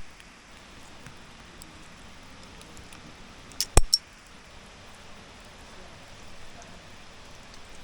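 Steady rain falling, with a quick cluster of three sharp metallic clinks about three and a half seconds in: climbing hardware such as carabiners knocking together as anchor gear is handled.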